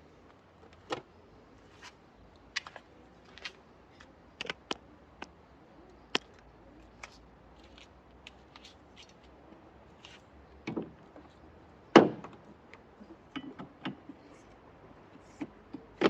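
Irregular clicks, taps and knocks of hand tools and parts being handled during car repair work, with the loudest knock about twelve seconds in.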